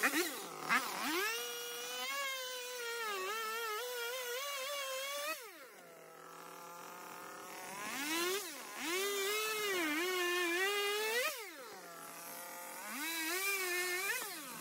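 Hand-held power tool working a paulownia wood slab. Its motor revs up and runs with a wavering pitch under load, drops back to a low steady idle about five seconds in and again near eleven seconds, then revs up again each time.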